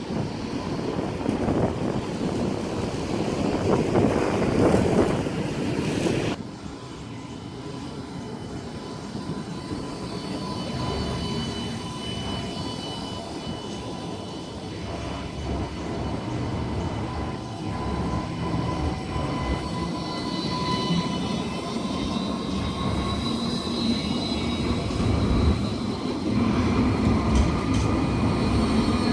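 Citadis X05 light-rail tram at a stop, with its electrical equipment giving off a steady hum and several thin whines that strengthen toward the end. For about the first six seconds a louder rushing noise covers it and then cuts off suddenly.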